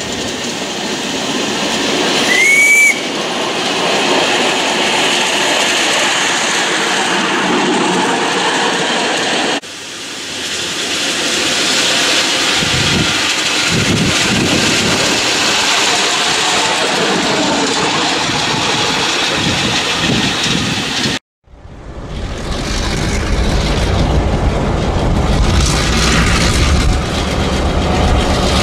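Ride-on live-steam miniature locomotive running on its track, with a short whistle toot about two seconds in. After an abrupt cut about 21 seconds in, a diesel locomotive engine runs low and steady.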